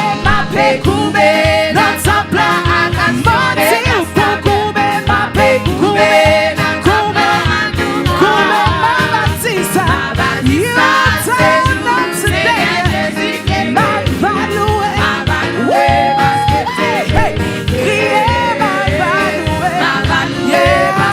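Live gospel praise music: sung vocals over a band with a steady beat.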